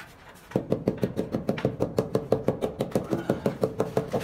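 Rubber mallet tapping a ceramic wall tile in quick, even strokes, about six or seven a second, each knock with a short ringing tone, bedding the tile into its mortar. The tapping starts about half a second in.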